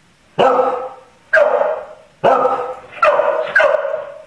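A medium-sized red merle herding dog barking at the front door, five sharp barks about a second apart, the last two closer together, each trailing off with a short echo. It is alert barking, the kind a dog gives when someone is at the door.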